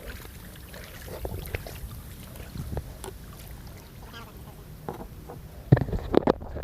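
A kayak being paddled: irregular paddle strokes in the water, with low rumble against the hull. There are a few loud knocks about six seconds in.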